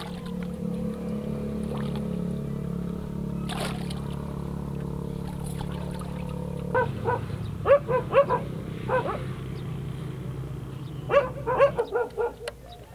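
A dog barking and yelping in two quick runs of short barks over a steady low hum, which stops near the end.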